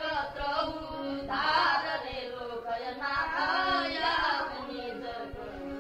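Music: a voice singing long, gliding held notes over a steady drone.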